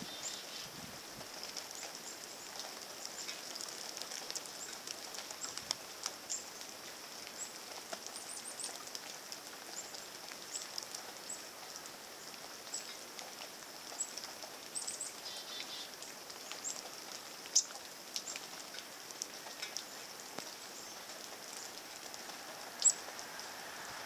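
Soft steady hiss of light rain, with scattered short, high bird chips throughout and two sharper, louder chips a few seconds apart near the end.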